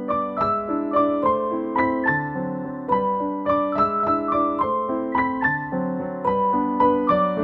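Background piano music: a gentle melody of struck notes, about two or three a second, over lower chords.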